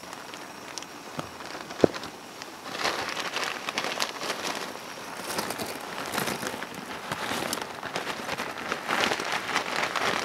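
Water at a rolling boil in a small metal camping pot on a SOTO Windmaster canister stove: a dense, continuous bubbling crackle that thickens about three seconds in. There is a single sharp knock about two seconds in.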